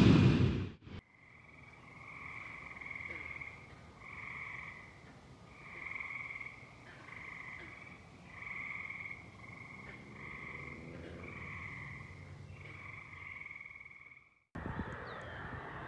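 Frogs calling in the evening: a run of trilled calls, each about a second long, repeating with short gaps. In the first second, loud aircraft engine noise fades and cuts off. Near the end the sound cuts to a different outdoor background with bird calls.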